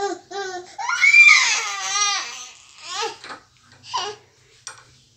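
A toddler's loud, high-pitched wavering shriek about a second in, with short babbled sounds before and after it.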